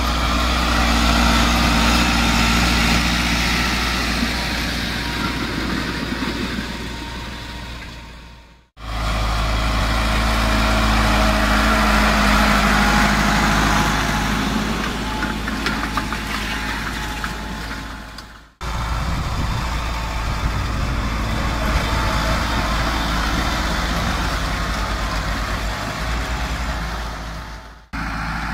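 Massey Ferguson 375 tractor's diesel engine running steadily under load as it pulls a disc harrow. The sound fades out and back in twice.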